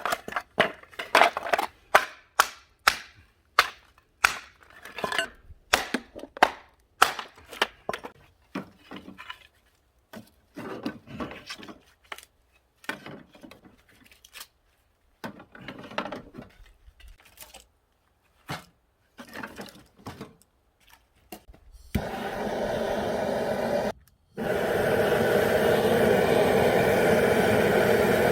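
Bamboo kindling cracking and snapping in many sharp, irregular cracks, followed about two thirds of the way in by a steady rushing noise of the bamboo fire burning hard, broken once by a short gap.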